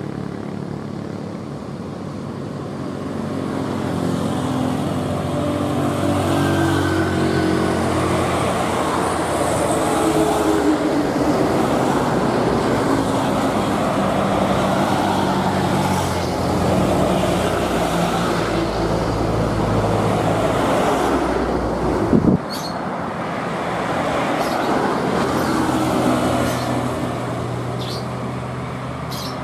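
Road traffic dominated by heavy diesel trucks passing, their engines running with a steady low drone. About three-quarters of the way through, the sound breaks off abruptly and then carries on.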